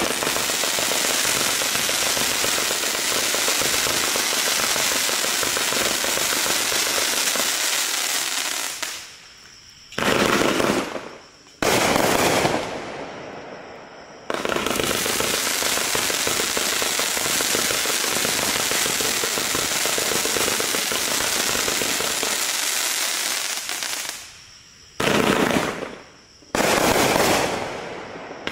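A 195-shot consumer firework cake firing shots in quick, continuous succession. It fires in two long runs of about nine seconds each. After each run comes a short lull, then two shorter bursts that fade away.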